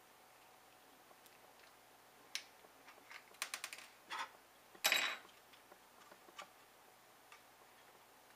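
Mounting guard being pried off a laptop SATA hard drive by hand: a scatter of sharp clicks and snaps. There is a quick run of clicks about three and a half seconds in and the loudest snap about five seconds in.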